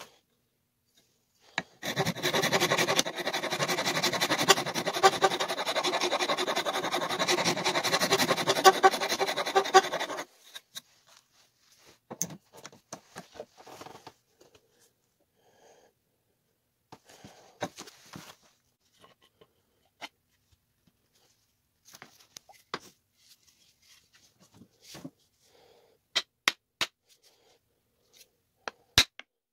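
Wood being worked on a hatchet handle: about eight seconds of continuous, loud scraping that stops abruptly, then scattered light taps, clicks and knocks as the head is handled and fitted, with a few sharper ticks near the end.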